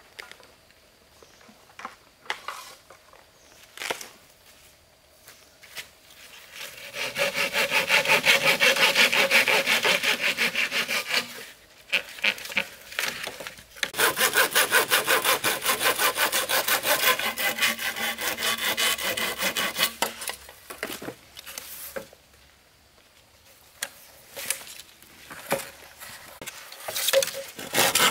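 Hand saw cutting through a green bamboo pole with quick back-and-forth strokes. The sawing comes in two long runs and starts again near the end, with quieter knocks and rustles of handling between.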